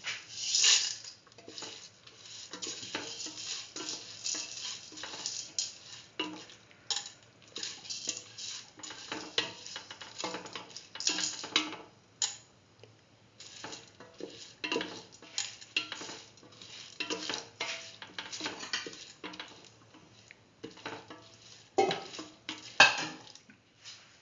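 Spatula scraping and clinking against a pan while stirring chopped ash gourd, tomato, onion and soaked mung beans, in irregular strokes, with a faint sizzle from the pan.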